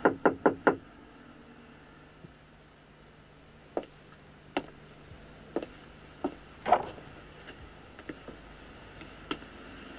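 A rapid run of about five knocks on a wooden door, then scattered single quieter knocks and bumps, one louder one about two-thirds of the way through, over a faint steady hum.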